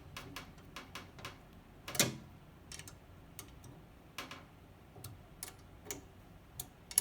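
Faint, irregular small clicks and taps of a hand tool working the screws on a pen-plotter writing machine, roughly one a second, with a louder knock about two seconds in.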